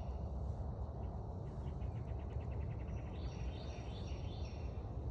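Songbirds singing: a phrase of several quick high notes about three seconds in, with a rapid trill before it, over a steady low rumble.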